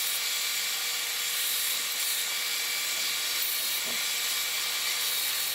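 Power sander running steadily with a hiss as a cedar box's corners are held against it and rounded over.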